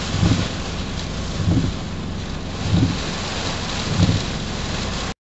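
Heavy tropical-storm rain and wind: a steady hiss of rain with a low swell about every second and a quarter, four in all. The sound cuts off abruptly near the end.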